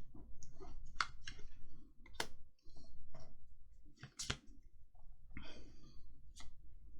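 Pokémon trading cards being handled and slid past one another, with a handful of sharp clicks at irregular moments and patches of soft rustle.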